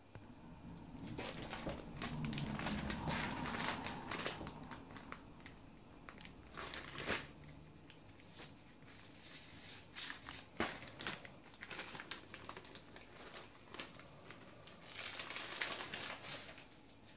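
A thin plastic wrapper crinkling and rustling as it is handled and peeled off a slab of laminating butter laid on croissant dough, in irregular bursts with sharp crackles. The longest rustle comes in the first few seconds, scattered ticks follow, and another burst comes near the end.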